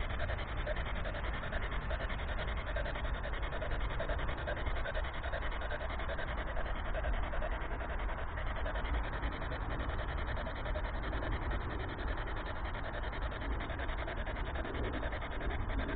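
PSB7 spirit box sweeping the radio band in reverse through a small Bluetooth speaker, giving a steady hiss of radio static.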